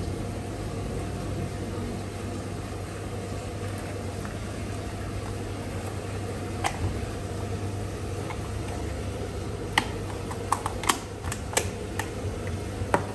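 Steady rush of water from a pond waterfall spilling into a koi pond, over a low steady hum. Light clicks and taps of a plastic container being handled, once about halfway through and several near the end.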